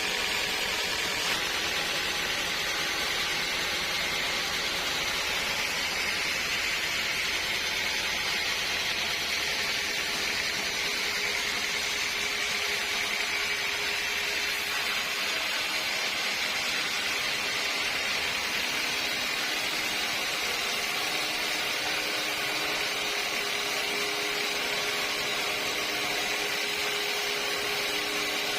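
Sawmill saw running steadily, a constant mechanical noise with a faint steady hum underneath and no pauses or breaks.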